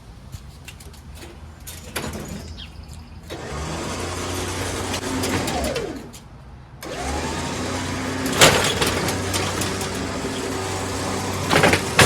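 A few light knocks, then the engine of a Craftsman T1600 lawn tractor with a blown cylinder head starts running about three seconds in. It cuts out about six seconds in, then starts again a moment later and keeps running, with a couple of loud knocks.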